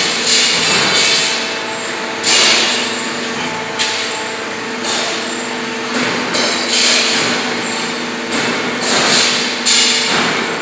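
Leaf spring production line machinery running: a steady hum under a constant hiss, broken every second or two by a sudden, sharp burst of hiss or clatter.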